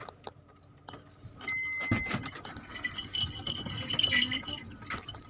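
Car keys jangling and rattling, loudest from about two seconds in, with a short steady high beep just before.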